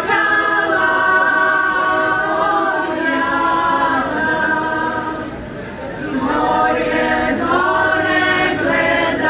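A group of women singing a traditional folk song unaccompanied, in long held notes, with a short break between phrases about six seconds in.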